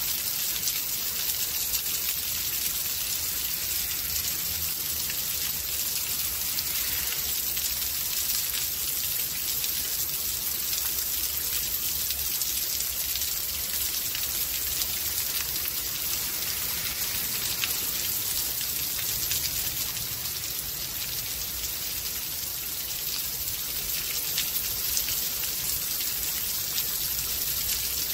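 Steady rain of a rainstorm: a dense, even hiss of falling drops with many fine individual taps, over a low rumble.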